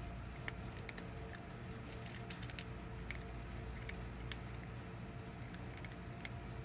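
Cat lapping water: soft clicks at an uneven pace, several a second, over a steady low background hum.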